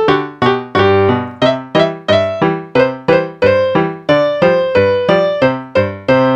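Background piano music: a steady run of struck notes, about three a second, each fading before the next.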